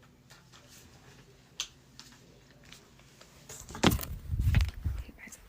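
A single short hiccup about one and a half seconds in. Near the end comes a louder burst of low knocks and rubbing close to the microphone.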